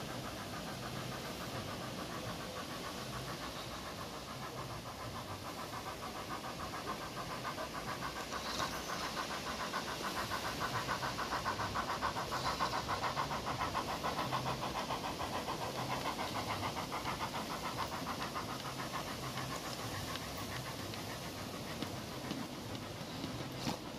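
Model steam locomotive and a train of tank wagons running along garden railway track, with a fast, even beat. It grows louder as the train passes, about halfway through, and then fades.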